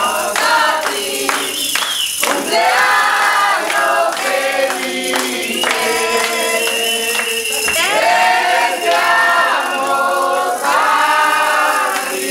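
A group of voices singing a birthday song together.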